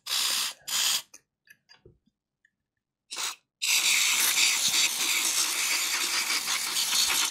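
WD-40 aerosol spraying into the seized quick-release blade clamp of a reciprocating saw to free it. It hisses in two short bursts, a third brief one about three seconds in, then one long spray of about three and a half seconds that stops abruptly.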